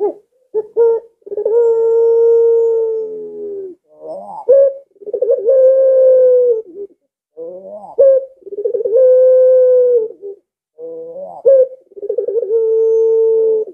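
Puter pelung, a white Barbary (ringneck) dove bred for its long coo, cooing four times. Each coo opens with a few short rising notes and ends in a long level drawn-out tone of about two seconds, the prized 'lengkungan' tail.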